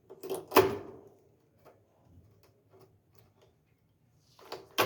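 A few sharp clicks and knocks from small wooden shims and hand tools being handled: the loudest about half a second in, another near the end, with faint ticks between.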